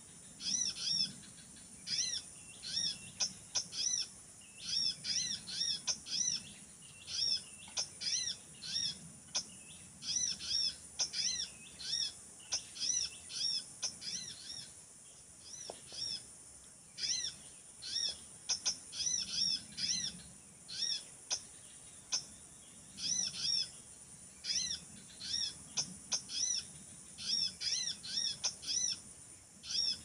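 Small birds chirping: short, repeated calls in quick runs of several notes with brief pauses between runs, over a steady high-pitched hiss.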